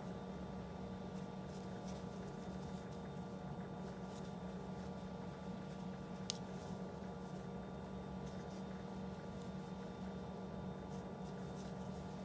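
Faint rustling and light clicking of a metal crochet hook pulling yarn through stitches, with one sharper click about six seconds in, over a steady low hum.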